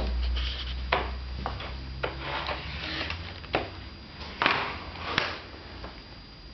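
Scattered knocks and clatters, about six in all, as a toddler handles and bumps a vacuum cleaner.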